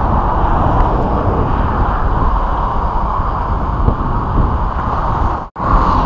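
Steady rushing of wind on the microphone mixed with traffic noise from the adjacent highway bridge; the sound drops out for an instant near the end.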